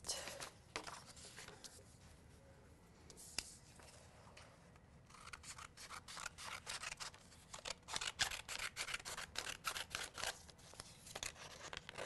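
Faint paper crackling and rustling as a sheet of vinyl with its transfer tape is handled and its paper backing peeled away, in quick irregular crackles through the second half.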